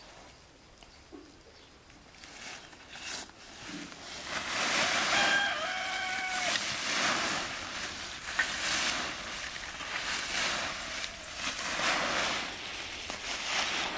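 Dry fallen leaves rustling and crunching as they are swept aside with a long stick, in strokes about once a second that start about four seconds in. A rooster crows once in the background near the middle.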